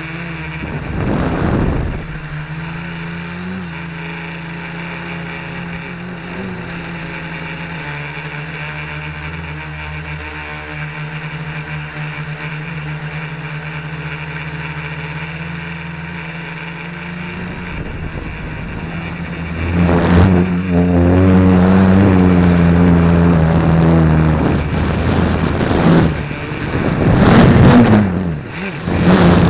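Home-built quadcopter's electric motors and propellers humming steadily, heard from a keychain camera slung beneath it. About twenty seconds in the hum gets louder. Near the end the pitch swings up and down and there are sharp knocks as the quad goes into tree branches.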